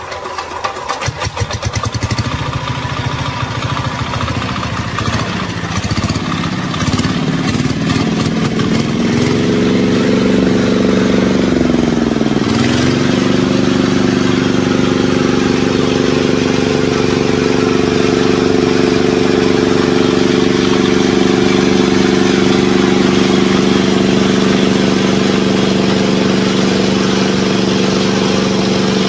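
Small engine of an old generator, freshly repaired, starting up: uneven at first, its speed rising over several seconds with a brief dip about twelve seconds in, then settling into a steady run at constant speed.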